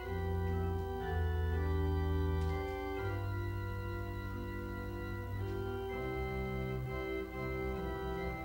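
Church organ playing slow, held chords, the bass note changing every second or two.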